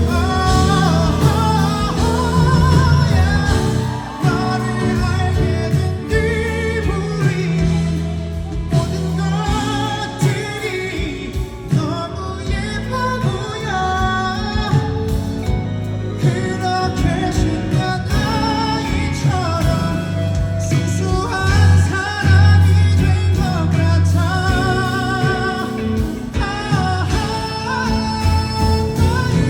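A male singer singing live over band accompaniment through the stage sound system during a festival sound check, the voice held in long lines with vibrato over a steady bass.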